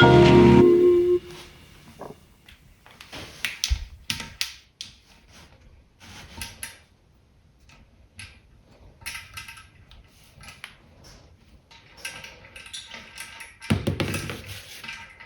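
Music cuts off about a second in, followed by sparse, irregular small knocks, clicks and taps.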